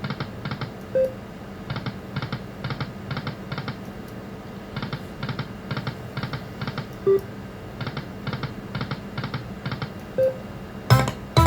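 Video slot machine spinning. Each spin ends in a run of about five evenly spaced reel-stop clicks, roughly three a second, and the spins come about every three seconds, with a few short beeps between them. Near the end there are several louder hits as a musical win sound starts.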